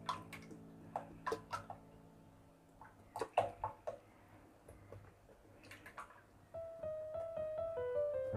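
Quiet background music with a melody coming in about six and a half seconds in. Over it come scattered light knocks and taps, a cluster of them three to four seconds in, from a coconut-milk carton being tipped and shaken over a non-stick pan.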